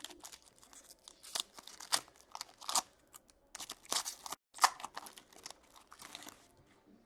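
Plastic wrapping being torn open and crinkled as a sealed box of hockey cards is opened, in a run of irregular crackling rustles that die down near the end.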